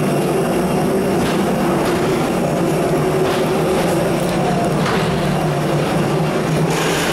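Steady, loud machinery drone in an airport jet bridge, with a few light knocks from passengers walking and rolling suitcases along the floor.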